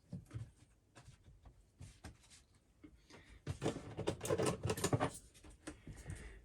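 Light clicks, knocks and rattling from an old kitchen mixer tap and its flexible hoses being worked out of the sink-top hole, busiest in a scraping, rattling stretch from about three and a half to five seconds in.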